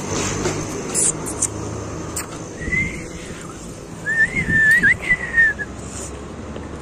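A person whistling: a short high note about two and a half seconds in, then a longer whistle that wavers up and down for about a second and a half.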